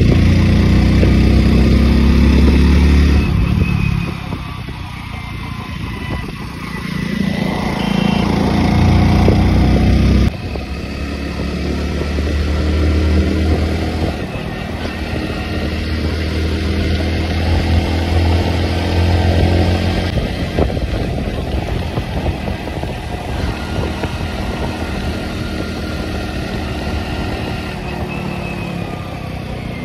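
Hero motorcycle's engine running while the bike is ridden, its note rising and falling with the throttle. It is loudest for the first few seconds, drops away, and builds again, with an abrupt change about ten seconds in.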